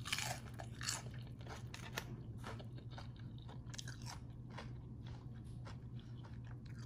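Crisp crunching and chewing of a battered fried banana fritter (chuối chiên) with a crispy rice-flour and black-sesame coating, in irregular crunches, over a low steady hum.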